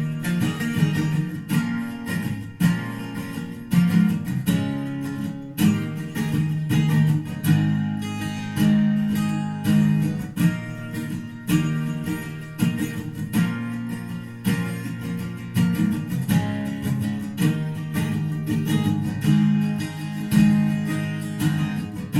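Recorded music with strummed acoustic guitar, played back through a pair of Fyne Audio F700 loudspeakers in a stretch without vocals.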